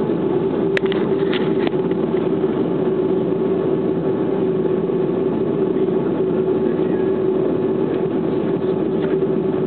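Airliner engines running with a steady drone and hum, heard inside the passenger cabin as the plane prepares for takeoff. A few brief clicks about a second in.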